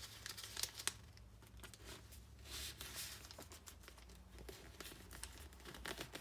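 A sheet of kami origami paper rustling and crinkling under the fingers as it is folded edge to crease and smoothed flat, in short scattered crackles.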